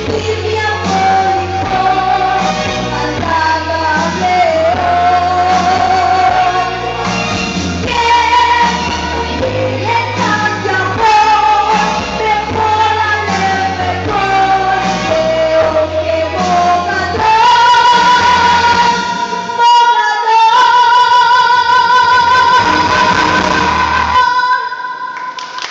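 A singer performs a pop song over a band with a steady bass line. From about two-thirds of the way in, the singer holds one long high note with vibrato to end the song. The music stops shortly before the end and clapping begins.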